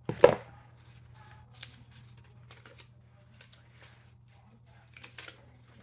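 Hands handling toy packaging and a paper leaflet: one sharp knock just after the start, then soft, scattered rustles and small clicks.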